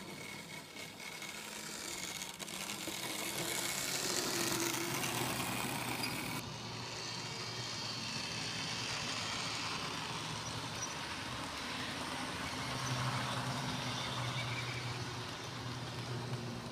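OO-gauge model trains running on the layout's track, a continuous mechanical running sound of small electric motors and wheels on rail that grows louder over the first few seconds.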